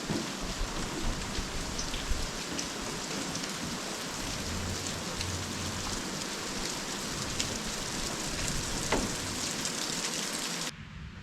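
Steady rain falling, with scattered sharp ticks of individual drops hitting close by. It stops abruptly near the end.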